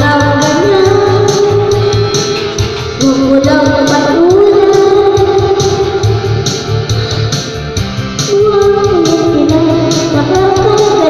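A song: a singing voice holds long, wavering notes over guitar and a steady beat.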